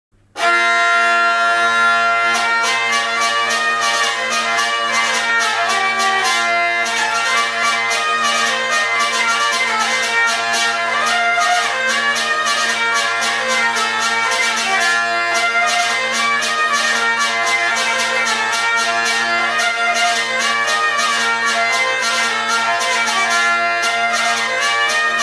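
Hurdy-gurdy playing a French branle tune: a melody on the keyed strings over steady, unbroken drones, driven by the hand-turned wheel. From about two seconds in, a regular rhythmic buzz from the buzzing bridge (trompette), struck by pulses of the crank, beats under the tune.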